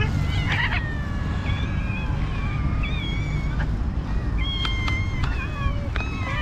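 A crowd of stray cats meowing over one another, many drawn-out cries overlapping, as they beg for the raw fish being carried. A steady low rumble runs underneath.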